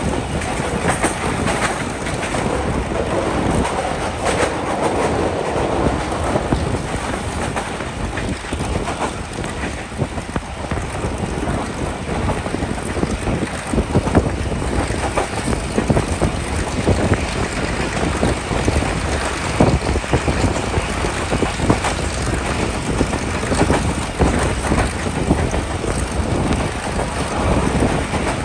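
Passenger train running, its carriage wheels clattering over the rail joints in a steady clickety-clack, as it crosses a railway bridge.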